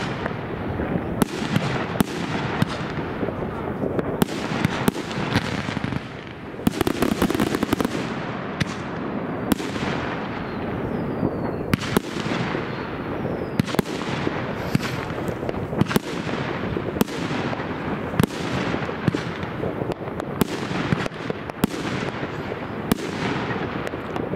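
Many fireworks going off at once: a steady din of distant bangs, with frequent sharp cracks of rockets and firecrackers bursting closer by. There is a denser patch of crackling about seven seconds in, and a few short rocket whistles later on.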